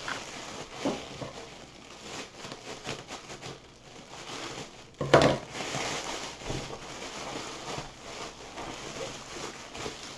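Plastic poly mailer bag rustling and crinkling as it is pulled and torn open by hand, with one sharper, louder rustle about five seconds in.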